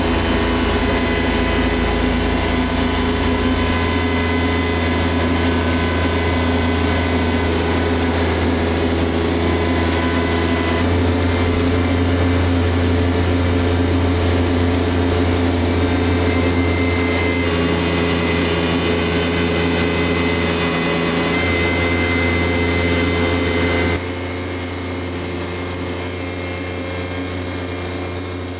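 An engine running steadily at a constant speed; it becomes quieter about 24 seconds in.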